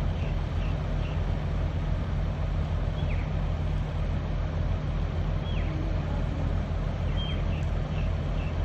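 Steady low drone of a truck's engine. A few short, faint, high chirps falling in pitch come through it, about three seconds in, at five and a half seconds, and around seven seconds.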